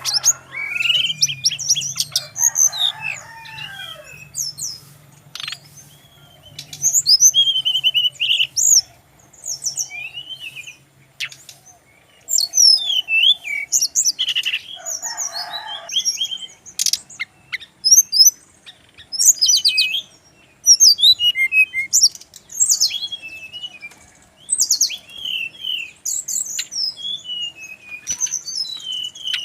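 Brown-chested jungle flycatcher (Sikatan Rimba Dada Coklat) singing: quick, high, sweeping whistled notes and trills, delivered in short bursts separated by brief pauses.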